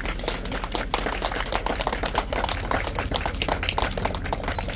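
A small group of people clapping: dense, irregular hand claps throughout.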